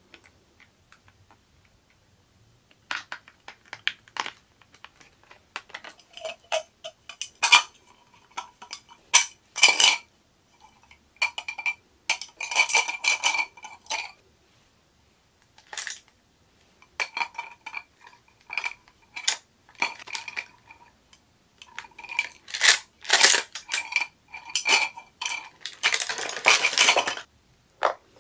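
Small hard plastic items being handled: makeup brushes and utensils knocking and clinking against a clear plastic tumbler, many separate clicks with short ringing tones. A longer rustle near the end.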